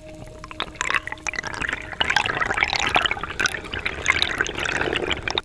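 Water splashing and bubbling, a dense crackle that builds over the first two seconds and cuts off suddenly at the end.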